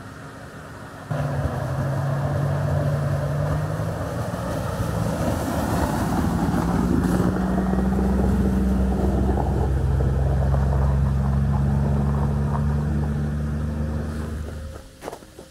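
Pickup truck driving slowly down a snowy road close by: a steady engine hum whose pitch steps up and down a couple of times, with road noise from the tyres. It starts abruptly about a second in and dies away near the end.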